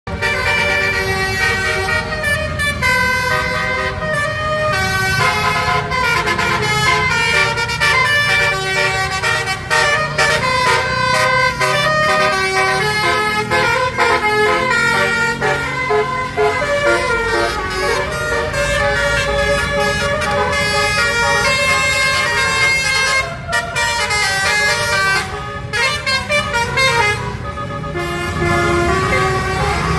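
Bus telolet horn, a multi-tone air horn sounding through roof-mounted trumpets, playing a melody note after note over the bus engine running low underneath.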